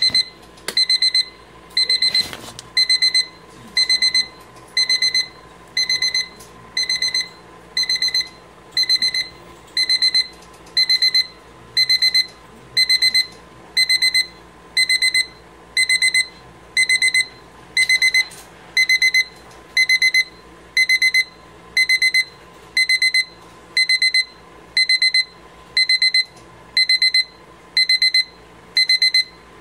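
Electronic alarm beeping: a high-pitched beep-beep-beep cluster about half a second long, repeating about once a second.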